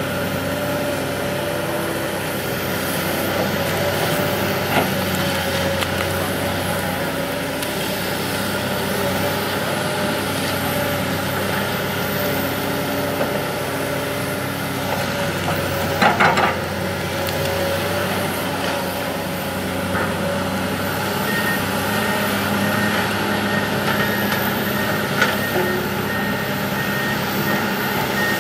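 Komatsu PC200 hydraulic excavator's six-cylinder diesel engine running steadily under working load in mud, with a sharp metallic clank about halfway through. A repeated high beeping, typical of a travel alarm, starts about three-quarters of the way in.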